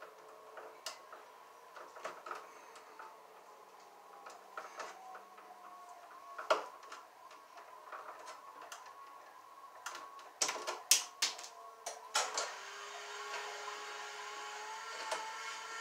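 Scattered clicks and snips of hand wire strippers working electrical cable ends at a junction box, with a louder cluster of sharp clicks a little past the middle. A steady whirring hum comes up near the end.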